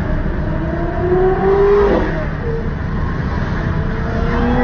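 Several sports-car engines revving over one another. The pitch climbs for the first two seconds, drops off, then climbs again near the end.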